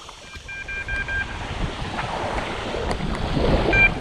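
Electronic carp bite alarm beeping, about five quick beeps in a row and then one more near the end, signalling line being taken on a bite. Behind it, wind buffets the microphone in a growing rumble as the rod is picked up, with small waves lapping at the shore.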